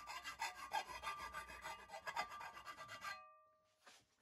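Coarse hand file rasping in repeated strokes across a built-up weld on the edge of a cast aluminium Kawasaki Z1 sprocket cover clamped in a vise, the casing ringing faintly under the file. The filing stops abruptly about three seconds in.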